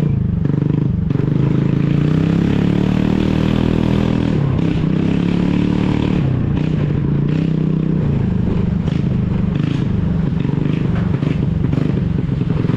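Aprilia 125 cc scooter engine running with its silencer removed, giving a loud open-exhaust note. Its pitch rises and falls as the throttle is worked, climbing a few seconds in and dropping back about halfway through.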